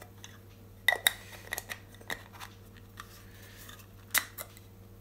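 A stacked set of plastic macro extension tubes handled and turned in the hands, giving sharp clicks and knocks: a pair about a second in, a few lighter ones after, and the loudest just after four seconds.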